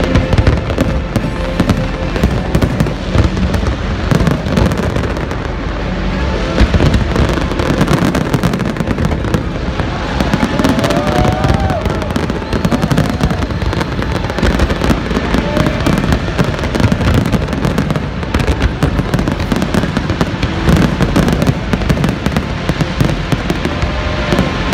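Fireworks display going off in a continuous barrage: many overlapping bangs and crackles with no pause.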